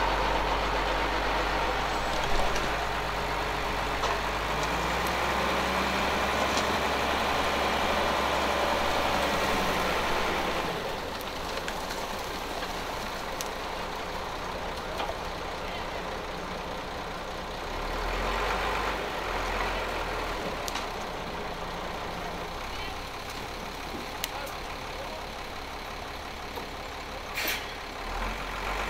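Diesel engines of heavy earthmoving machinery running steadily, easing off about a third of the way in and picking up again past the middle. There is a short sharp hiss near the end.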